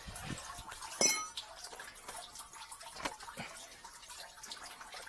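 Water dripping and trickling, with a single ringing metallic clink about a second in.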